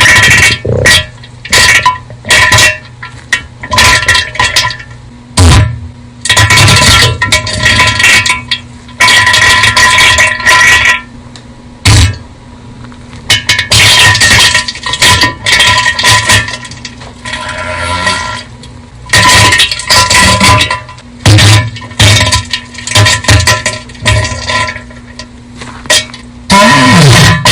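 Bass-boosted, heavily distorted diarrhea sound effect: loud, clipped sputtering bursts coming one after another at an irregular pace, separated by short gaps.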